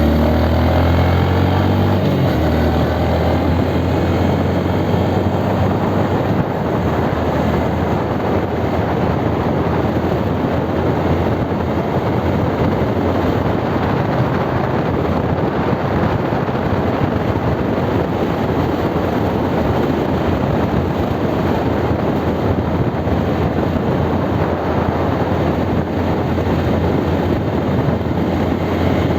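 Honda Grom's air-cooled 125 cc single-cylinder engine running steadily while the bike is ridden, a constant dense rumble with no breaks.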